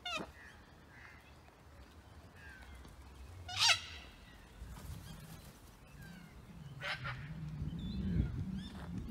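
White cockatoo giving harsh screeching calls: a short one at the start, the loudest just under four seconds in, and another near seven seconds. A low hum builds underneath in the second half.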